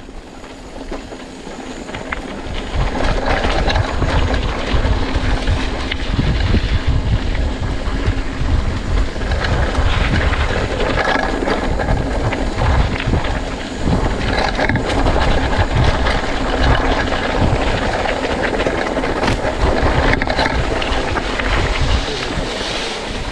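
A mountain bike riding along a dirt trail: wind rumbling on the microphone, with the tyres and bike rattling over the rough ground in an uneven, continuous noise.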